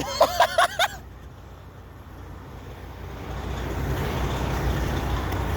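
Low rumble of a road vehicle, building up over a few seconds and then holding steady, with a few words spoken at the start. No siren tone is heard.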